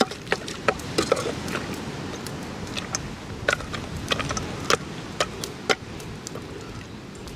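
A hand mixing seasoned lionfish in a small metal pot, giving scattered sharp clicks and clinks against the pot over a steady low background noise.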